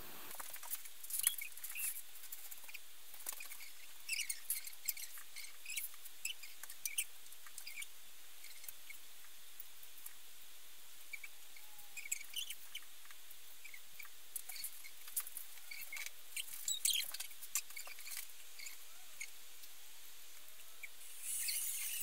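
Faint handling noise from hanging a string of lights on a fir tree: scattered light clicks and rustles with brief high squeaks, over a faint steady hum.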